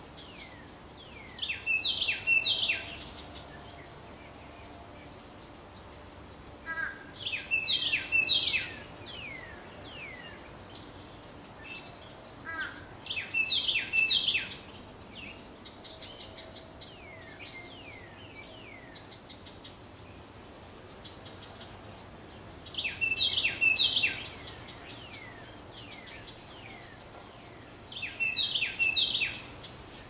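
House wren singing: five bubbly bursts of rapid notes, each about a second and a half long, repeated every five to ten seconds.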